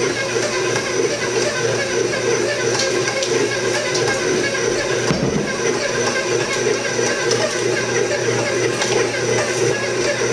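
A 10-speed bowl-lift stand mixer running steadily on low speed (setting 2), its motor humming with a regular pulsing as it works flour, yeast mixture and beer into a shaggy pizza dough.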